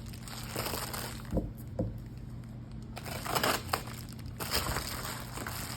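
Packaging of a mailed parcel crinkling and crackling as it is handled and cut open, with a couple of small knocks in the first two seconds and denser rustling in the second half.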